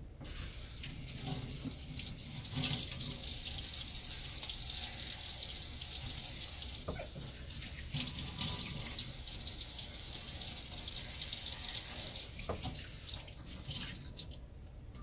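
Kitchen tap running into a small stainless-steel sink while something is scrubbed with a sponge under the water. The water stops about twelve seconds in, followed by a few light knocks.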